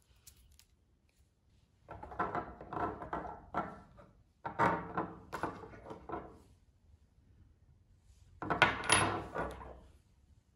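Small RC car parts and tools being handled on a tabletop: three bouts of rattling and clattering as screws, a metal cross wrench and wheels are picked up and set down.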